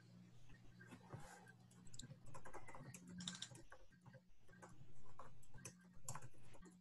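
Typing on a computer keyboard: quick, irregular key clicks in runs with short pauses, as text is entered in a document, over a faint steady low hum.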